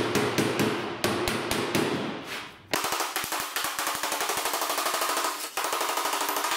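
Hand hammer striking the flange of an 18-gauge sheet-steel panel against a hand-held dolly, each blow ringing metallically. The blows come a few a second, then about three seconds in turn to a fast, even rhythm. The hammering peens the flange to stretch it and make it lie flat.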